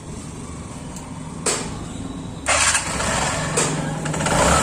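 TVS Star Sport motorcycle's electric starter (self motor) cranking the single-cylinder four-stroke engine, which catches and runs louder from about two and a half seconds in. The starter motor has just been cleaned and greased to cure a noisy self-start.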